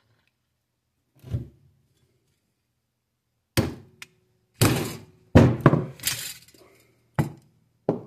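Hammer striking the steel punch of a hand percussion-cap maker, punching and forming a cap from thin 0.004-inch copper sheet. A soft knock as the punch is set is followed by about seven sharp metallic blows, the loudest in the middle, some with a short ring.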